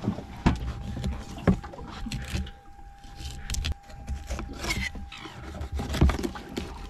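Scattered knocks and scrapes of handling on a boat's bait board, with a few sharp knocks, a low rumble and a faint steady high hum underneath.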